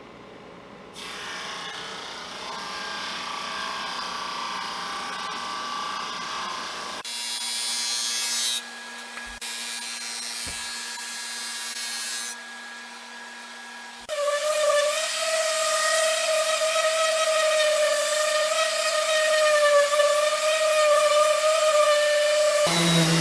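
Woodworking power tools running in a series of abruptly cut segments, ending in a steady motor whine with several overtones.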